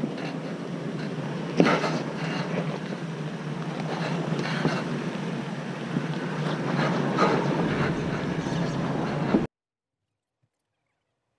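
Toyota 4Runner crawling over rock and dirt: a steady rumble of engine and tyres, with several sharp knocks from the tyres on the rocks. It grows louder as the truck nears, then cuts off suddenly about nine and a half seconds in.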